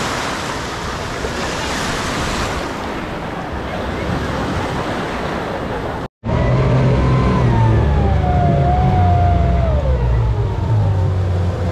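Surf washing onto a sandy shore, with wind on the microphone. About six seconds in, the scene switches to speedboat outboard motors running with a low, steady rumble, and a whine above them slides slowly down in pitch.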